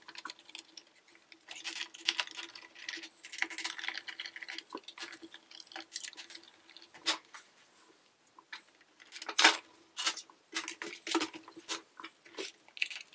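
Screwdriver backing out the small screws of a Roomba 565's plastic bottom plate, with scattered clicks and rattles of screws and plastic being handled. A few louder plastic knocks come in the second half as the cover is lifted off and set down.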